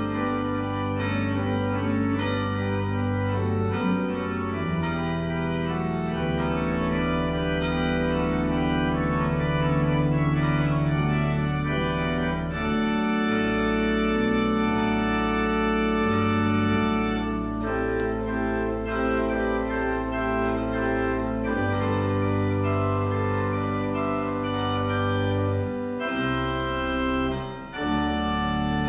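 Organ music: slow, sustained chords over held low bass notes, the harmony changing every few seconds.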